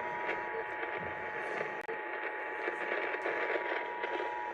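The two-tone Emergency Alert System Attention Signal (853 and 960 Hz together) sounding steadily over AM radio hiss, with a brief dropout about two seconds in, then cutting off near the end. It heralds a Child Abduction Emergency (Amber Alert) message.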